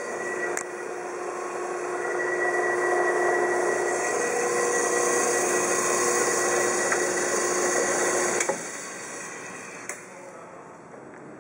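Wells 8M horizontal metal-cutting band saw running, its blade sawing through steel stock held in the vise: a steady machine whine with several steady tones. About 8.5 seconds in it cuts off suddenly and a fainter noise dies away, with a sharp click shortly after.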